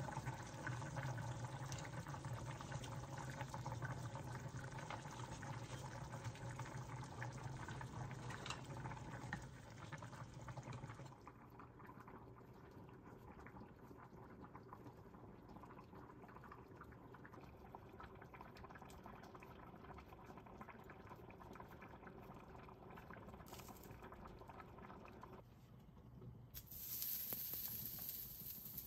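A cooking pot bubbling at a boil. About 11 seconds in it drops to a quieter steady bubbling, and a brighter hissing noise starts near the end.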